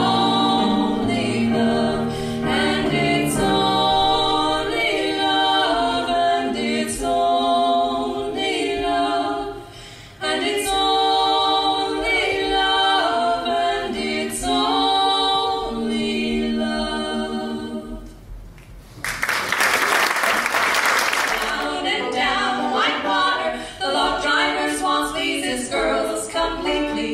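Women singing in close vocal harmony, long held chords with little accompaniment. About two-thirds of the way through, the singing breaks off for a couple of seconds of applause, then a new song begins.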